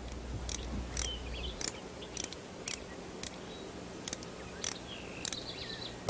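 A series of sharp, dry clicks, about two a second, with a few faint short chirps among them.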